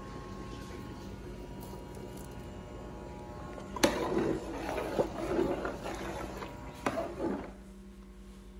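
Low steady electrical hum, then from about four seconds in a metal ladle stirring liquid in a large aluminium pot for about three and a half seconds: sloshing and scraping, with three sharp clinks of the ladle against the pot.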